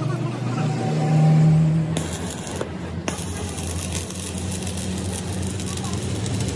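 Stick (arc) welding on steel: from about two seconds in the welding arc crackles and sizzles steadily, over a steady low electrical hum.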